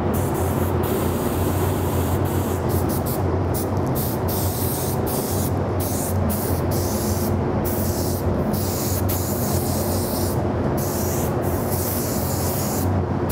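Iwata LPH-80 spray gun hissing as it sprays clear coat in repeated passes, its air stopping for moments many times as the trigger is released. Under it runs the steady hum of the paint booth's exhaust fan.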